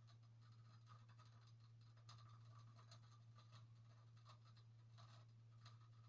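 Near silence: a faint steady low hum with a few faint scattered ticks.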